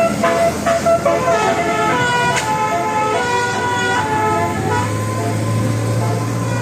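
Bus 'telolet' multi-tone air horn playing a quick tune, several horn notes sounding together and stepping to new pitches every fraction of a second. A low steady hum joins about two-thirds of the way in.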